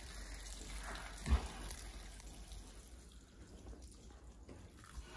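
A foaling mare's waters breaking: amniotic fluid running and dripping into straw bedding, with one soft thump about a second in.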